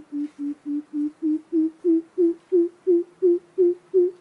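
Greater coucal giving its hooting call: a steady series of deep hoots, about three a second, growing louder and edging slightly higher in pitch.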